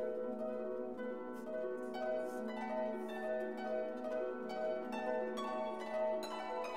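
Background music: a melody of separate pitched notes over a held low note.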